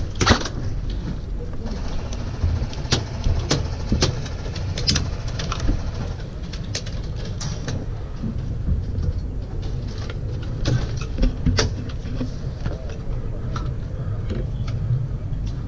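Steady low rumble of wind on the microphone, with scattered sharp cracks of airsoft gunfire every second or so.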